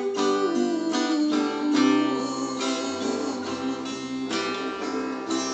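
Acoustic guitar strumming chords in the instrumental close of a worship song, growing quieter near the end.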